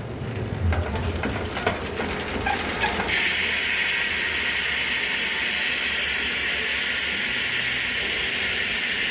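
Hope Pro 4 DH135 rear hub freewheeling, its freehub pawls clicking over the ratchet. For about three seconds there are separate clicks, then the wheel is spun fast and the clicks merge into a loud, steady, high buzz.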